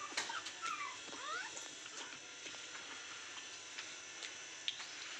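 Puppies whimpering: several short, high squeaks that rise and fall in the first second and a half, then scattered faint clicks.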